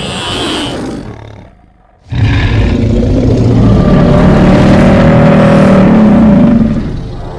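Roar sound effect of the cartoon creature Meow Rex: a sound fades out, then after a short gap comes one long, loud roar of about four and a half seconds that fades near the end.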